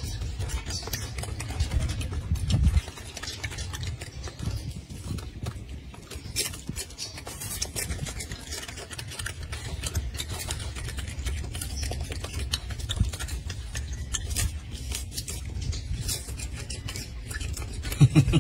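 Young golden snub-nosed monkey biting and chewing lettuce leaves: many short crisp crunches and crackles, with leaves rustling, over a steady low rumble.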